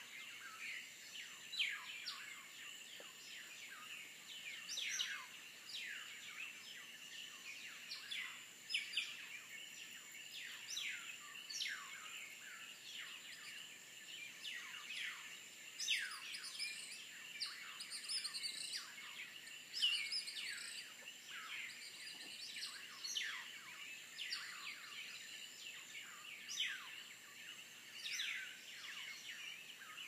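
Night chorus of frogs: many short whistled calls, each falling sharply in pitch, overlapping one or two a second, over a steady high-pitched background hum.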